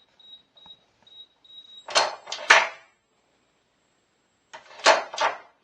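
Electronic safe keypad beeping at one high pitch as keys are pressed, about six short beeps in quick succession. Then loud knocks and clunks from the lock and door: a cluster of three about two seconds in and two more near the end.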